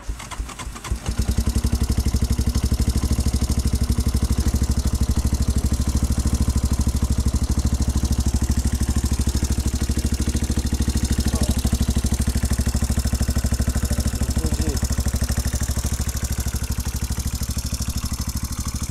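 Yamaha Raptor 350 quad's single-cylinder four-stroke engine starting up and catching within about a second, then idling steadily with an even beat.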